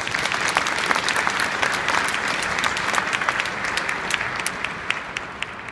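Stadium crowd applauding, many hands clapping at once, dying down near the end.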